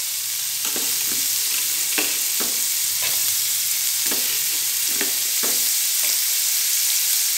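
Diced carrot, beans and onion frying in oil in a metal kadai with a steady sizzle, while a metal slotted spoon stirs and scrapes the pan in short strokes about every half second to a second.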